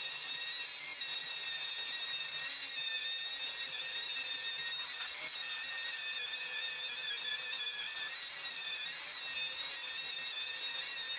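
Electric drill running steadily under load, drilling through the table's metal top, with a high motor whine that wavers slightly in pitch.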